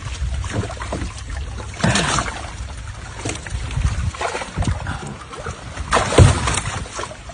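Water splashing and sloshing in uneven surges, the loudest about six seconds in.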